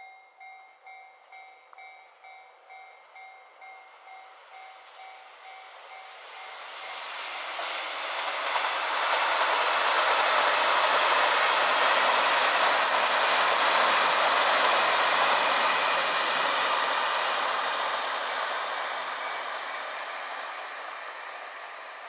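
Level-crossing warning bell dinging at about two and a half strikes a second, soon drowned out as a JR Hokkaido KiHa 261 series diesel limited express passes. The train's rumble builds to a peak about midway and then fades.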